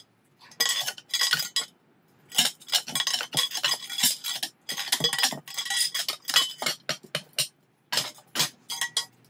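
A metal hand tool scraping and clinking against the muzzle of a shipwreck-recovered cast-iron carronade barrel, in quick clusters of short strokes with brief pauses.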